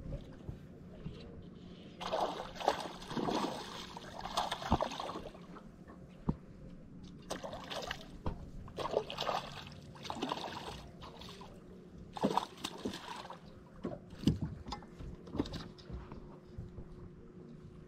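A hooked bass thrashing and splashing at the surface beside the boat in several bursts of splashing, with a few sharp knocks in between and a low steady hum underneath.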